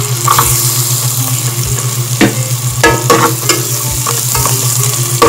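Chopped onion and garlic sizzling in butter in a metal pan while a metal spatula stirs them, scraping and knocking against the pan several times at an irregular pace. A steady low hum runs underneath.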